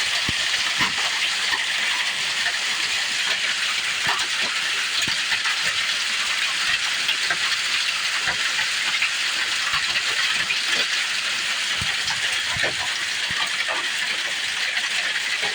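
Hail falling: a steady dense hiss of hailstones with many irregular sharp ticks of single stones striking a surface.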